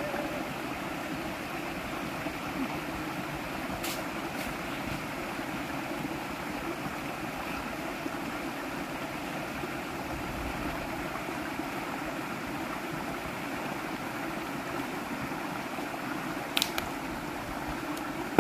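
Steady rushing of a forest stream, with two short sharp knocks, one about four seconds in and one near the end.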